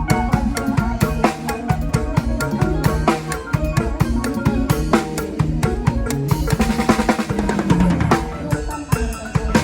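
Isan toei-lam band music: a drum kit plays a busy beat with bass drum and snare hits under pitched melody instruments.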